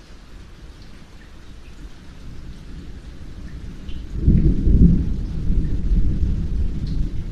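Steady rainfall with scattered drips, joined by a low rumble of thunder that builds and swells loudly about four seconds in, then rolls on.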